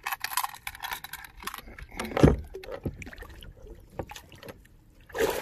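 Handling noises in a kayak: scattered clicks and rattles, with one dull thump on the hull a little over two seconds in.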